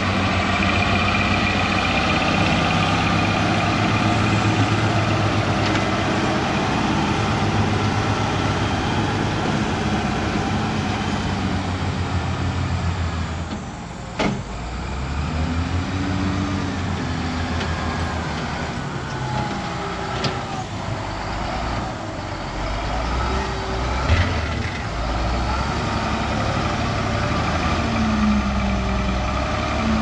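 Caterpillar 966F wheel loader's diesel engine running as the machine works and drives over soft ground, its pitch rising and falling with the throttle. A single sharp click sounds about halfway through.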